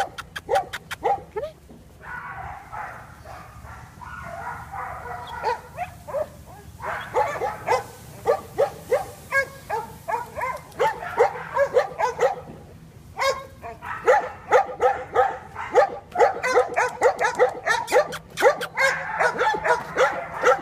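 Several dogs barking and yelping in quick, overlapping barks, several a second, with a few brief lulls: a kennel chorus.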